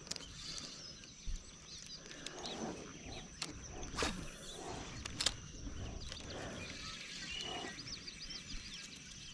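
Quiet outdoor pond ambience: faint birds chirping over a low rumbling background and a steady high thin whine, with a few sharp clicks about three to five seconds in.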